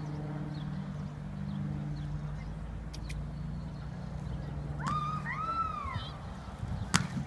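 Bubble-football play on grass: a steady low hum, a couple of rising-and-falling whoops about five seconds in, and a sharp thump near the end as inflatable bubbles collide.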